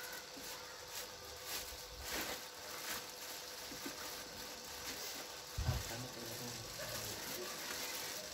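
Clear plastic wrapping crinkling and rustling as it is pulled off a new baby walker, with a soft thump about five and a half seconds in.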